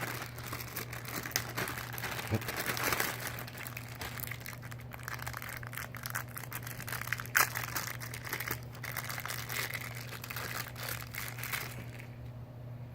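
Plastic packaging crinkling and rustling as it is handled, with a few sharp clicks, stopping about twelve seconds in.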